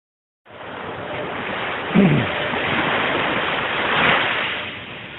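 Ocean surf washing on the beach as a steady rush that starts a moment in and swells as a wave comes in about four seconds in, with a short low bump about two seconds in.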